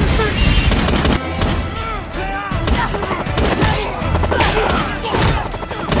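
Battle sound mix of gunfire and hits, many sharp shots and impacts in quick succession, over dramatic score music.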